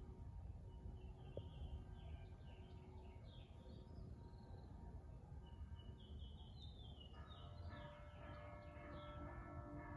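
Small birds chirping in quick, slightly falling runs over a low outdoor rumble. About seven seconds in, church bells start ringing, and their ringing tones carry on to the end.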